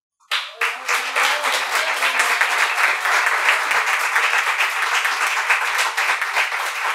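Small audience applauding: many hands clapping in a dense, even patter that breaks out suddenly just after the start and holds steady.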